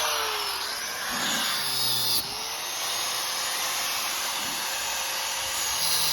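Grinder running at speed and cutting into a steel lockbox shackle. Its pitch dips and wavers under the load of the cut in the first couple of seconds, then holds steady.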